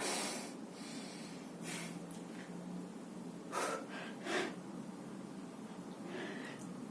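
A person taking short, sharp breaths, five in all, each a fraction of a second long, with the first the loudest.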